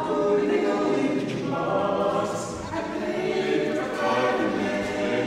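Male barbershop quartet singing a cappella in close four-part harmony.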